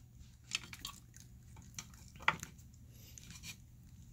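Faint, scattered small clicks and handling noises over a low, steady hum.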